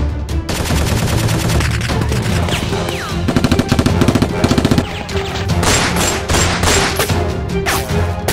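Rapid automatic gunfire sound effects over a backing music track: a fast run of shots in the middle, then a few separate louder blasts near the end.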